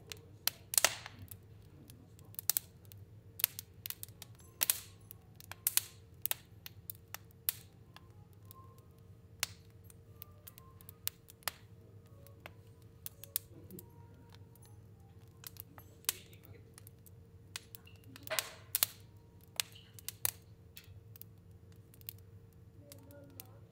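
A fire burning and crackling, with irregular sharp pops, a few louder ones about a second in and again near the end, over a steady low hum.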